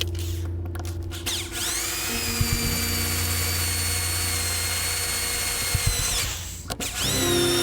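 Electric drill with a 5/32 in bit drilling into the aluminum wedge in an axe eye. The motor's high whine rises as it spins up about a second and a half in, runs steady for about four seconds, then drops away and stops. It spins up again near the end.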